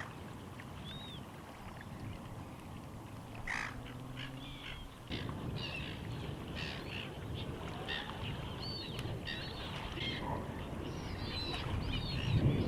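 Birds calling: many short chirping calls, busier in the second half, over a low background noise that grows louder near the end.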